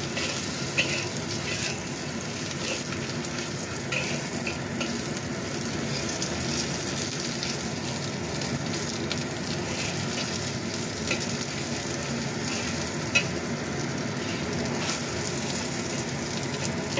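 Sliced fish balls sizzling steadily in hot oil in a wok, with a spatula scraping and tapping against the pan now and then as they are turned.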